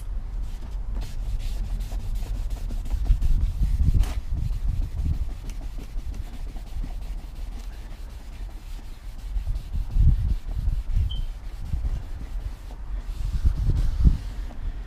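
Gloved hand rubbing a cloth over the face of a new brake rotor, wiping off the manufacturer's anti-rust oil after a spray of brake cleaner, with dull bumps now and then.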